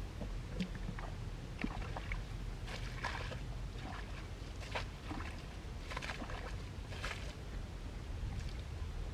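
Shallow water splashing in irregular bursts, about half a dozen, over a steady low rumble.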